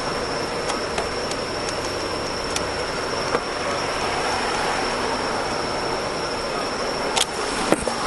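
Steady roar of passing road traffic, with a thin high whine over it and a few light clicks; a couple of sharper knocks near the end.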